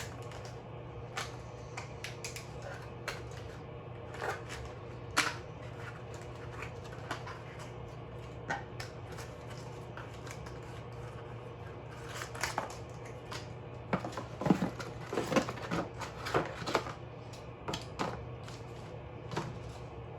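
Hands handling a table lamp and its packaging: scattered clicks, taps and rustles of plastic and metal parts, thickest in a run of sharper knocks about two thirds of the way through, over a steady low hum.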